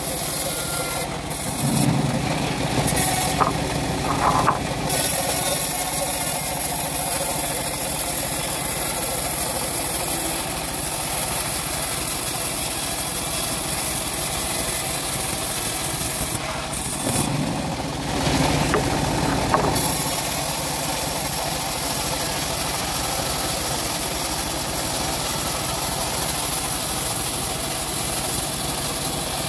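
Homemade bandsaw mill running steadily as its band blade rips a long timber plank that is being pushed through by hand. The sound shifts briefly twice, a few seconds in and again just past the middle.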